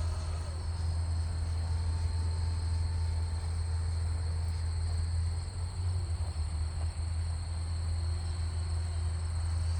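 Crickets chirring in a steady high trill over a continuous low rumble.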